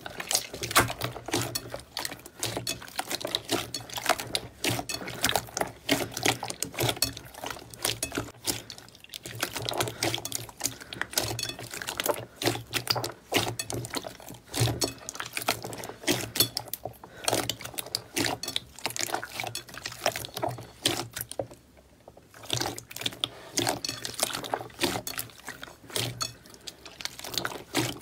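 Hands squeezing and kneading a large mass of glossy metallic slime: wet squelching with dense crackling pops from trapped air bubbles. There is a brief lull a little past three-quarters of the way through.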